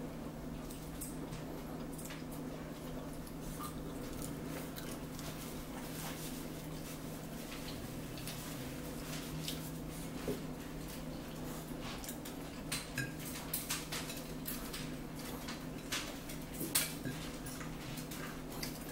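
Forks clicking and scraping against plates during a meal, in scattered short taps that grow more frequent in the second half, over a steady low hum.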